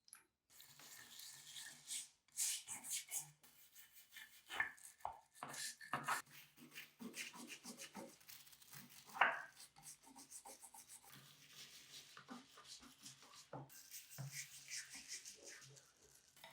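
Hand scrubbing and scraping on metal parts, with many small irregular clicks and knocks and one louder knock about nine seconds in.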